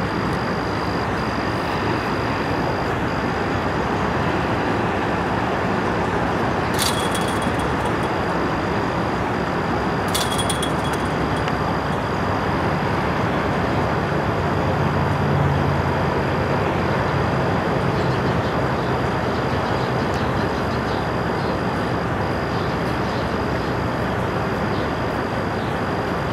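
Steady noise of freeway traffic, with a low engine hum swelling about halfway through as a heavy vehicle passes. Two sharp knocks cut through it, about seven and ten seconds in.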